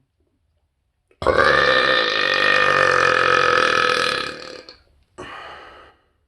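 A man's long, loud burp held on a steady pitch for about three and a half seconds before it trails off, followed a moment later by a shorter, quieter burp.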